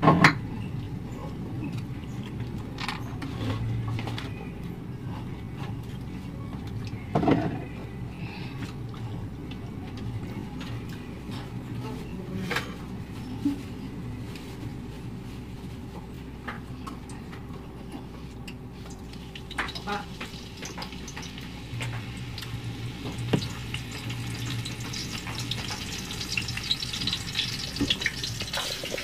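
Food frying in oil in a pan on a gas stove: a sizzle that grows louder over the last ten seconds or so, with occasional clinks of a utensil against the pan.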